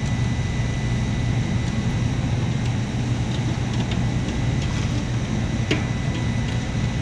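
Steady low mechanical hum of running refrigeration or HVAC equipment, with a few light clicks from hand work, the clearest a little before the end.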